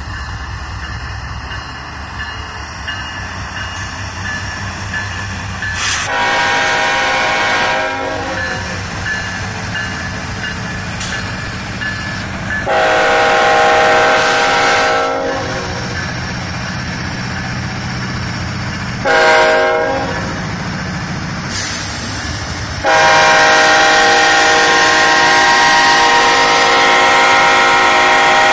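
CSX diesel freight locomotives sounding their multi-note air horn in the grade-crossing pattern: two long blasts, one short, then a final long blast still held at the end. Between the blasts the locomotives' diesel engines rumble low as the train moves off.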